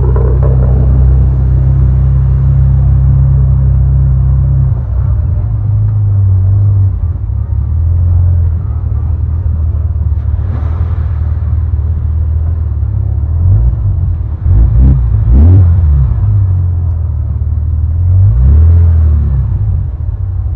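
Car engine running with a deep, steady low rumble, its pitch stepping a few times, then several short rises in revs about two-thirds through and again near the end.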